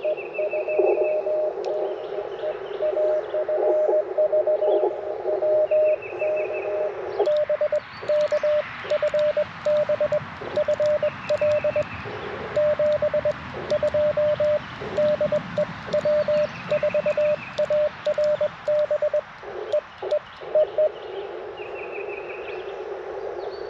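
Morse code tones near 600 Hz from an Icom IC-705 transceiver, keyed in dots and dashes. At first and again near the end they come through the receiver's narrow CW filter with band hiss. From about seven seconds in they are the operator's own sending heard as sidetone, with the hiss gone between characters. A bird's short trill repeats faintly several times.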